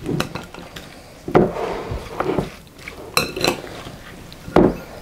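Slotted serving spoon tossing a dressed chopped salad in a glass bowl: the spoon knocks against the glass about once a second over the wet rustle of the vegetables, one pair of knocks near the middle ringing briefly.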